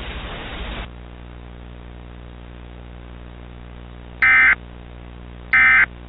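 Emergency Alert System end-of-message signal: two short, loud bursts of warbling digital data tones (the SAME "NNNN" EOM) about 1.3 seconds apart, over a low steady hum. A hiss before them cuts off just under a second in.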